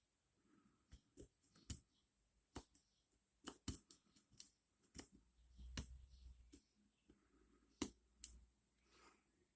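Picking a 5-pin dimple bike lock: faint, irregular small clicks and scrapes of the pick working in the keyway, with a brief low handling rumble about halfway through.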